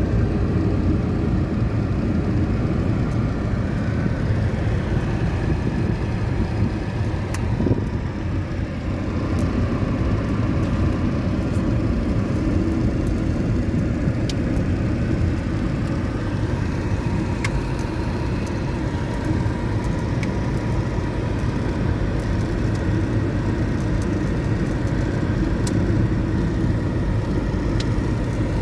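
Steady low rumble of a car driving, with engine and road noise.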